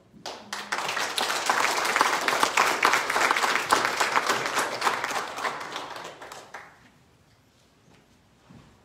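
A small congregation applauding, the clapping fading away about six and a half seconds in.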